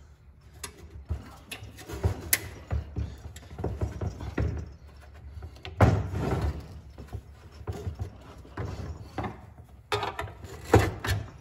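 Irregular clunks, knocks and rattles of a metal power-window regulator box and its window assembly being handled and shifted on a workbench, with a louder knock about six seconds in.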